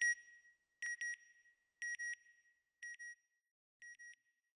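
Electronic double beeps, a pair about once a second, each pair fainter than the last as they die away.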